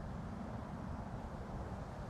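Steady low rumbling noise with a fainter hiss above it and no distinct events.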